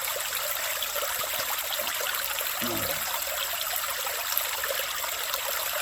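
Steady running creek water, with a brief voice sound about two and a half seconds in.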